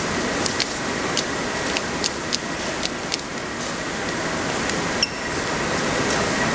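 Steady hubbub of a spectator crowd in an indoor badminton hall, with a scatter of short sharp clicks in the first three seconds or so and one more near the end.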